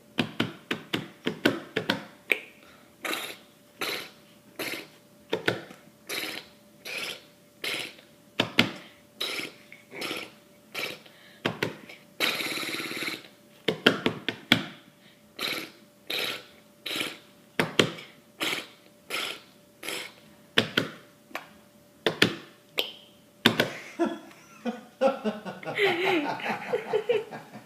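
A person making rhythmic mouth noises: a long run of short, sharp pops at about one and a half to two a second, broken about twelve seconds in by one longer, breathy sound lasting about a second and a half.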